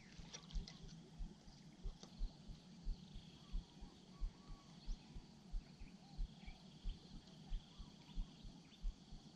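Faint lakeside ambience at dusk: a steady high insect drone with scattered short bird chirps, over a regular low thudding about one and a half times a second.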